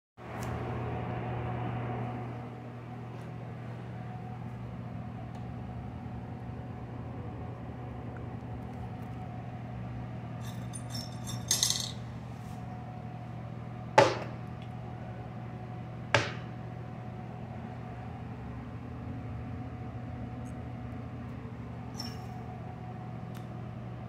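Steady low hum of room noise, broken by a few light clicks and then two sharp knocks about two seconds apart, as the toilet lid and seat are raised and knock back against the tank.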